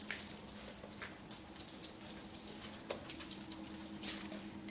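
Faint, irregular clicking of a small dog's claws on a hardwood floor as she walks about searching.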